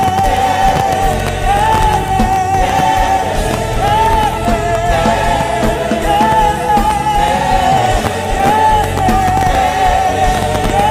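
Live worship music: a voice sings long, wavering held notes over steady accompaniment.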